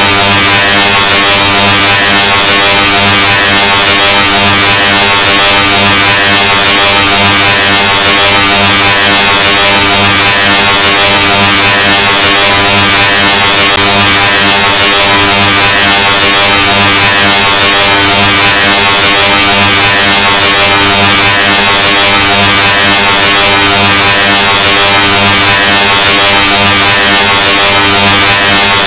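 The 'Loudness 2.0' sound effect: a harsh, heavily distorted buzzing tone at a steady low pitch, played at near full volume with a hiss over the top, unchanging throughout.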